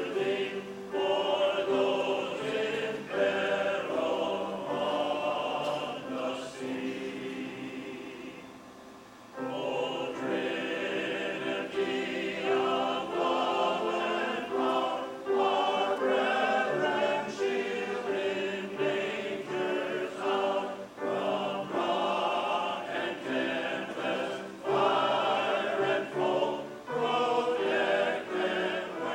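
A choir singing, fading to a soft passage about eight seconds in before the voices come back in full.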